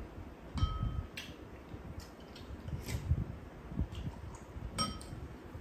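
Spoons and chopsticks clicking against ceramic rice bowls while two people eat, with a few sharp clinks, two of which ring briefly, about half a second in and near the end. Low, wet chewing and mouth sounds of eating mixed rice run underneath.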